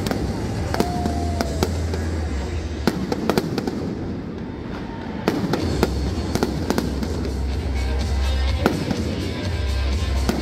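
Aerial fireworks going off in many irregular bangs and crackles over loud music with a heavy bass, played through a stadium sound system.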